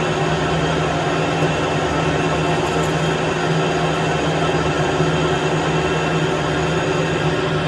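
Metal lathe running at steady speed while a cutting tool takes a cut in a steel shaft: a steady low motor and gear hum under an even hiss of cutting noise, with no change in speed.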